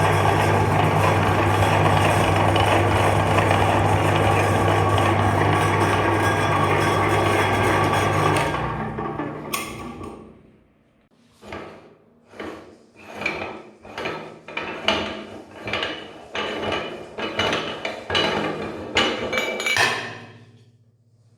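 Electric meat grinder motor running steadily with a low hum, then winding down and stopping. After that come about ten short knocks and clinks, roughly one a second, some with a brief metallic ring.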